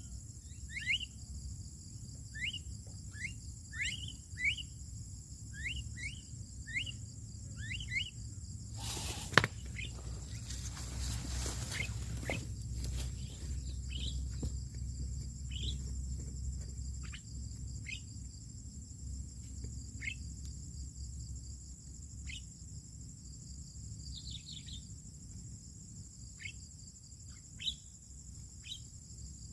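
Repeated short, sharp bird chirps, each a quick falling note, over a steady high insect chorus. About nine seconds in there is a sharp click followed by a few seconds of rustling noise.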